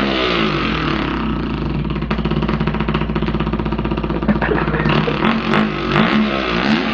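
A man imitating a dirt bike engine with his mouth: a buzzing, rattling drone that revs up and down in pitch. Through the middle it holds a fairly steady, fast rattle, and near the end it revs up and down several more times.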